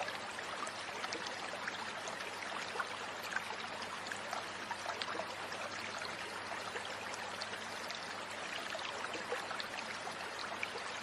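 Shallow rocky stream running over stones: a steady rush of water, dotted with many small splashes and droplet ticks.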